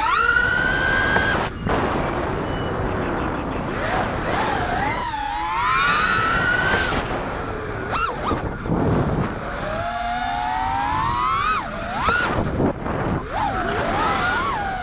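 Brushless motors of a 4-inch FPV freestyle quadcopter whining. The pitch sweeps up and down with the throttle again and again, and the sound drops out briefly a few times.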